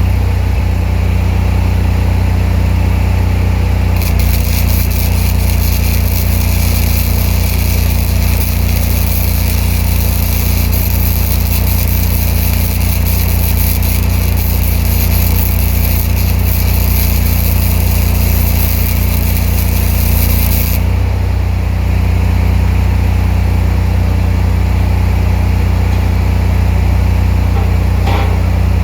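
Engine-driven welder-generator running steadily under load. A spool-gun MIG welding arc sizzles from about four seconds in and stops about three-quarters of the way through.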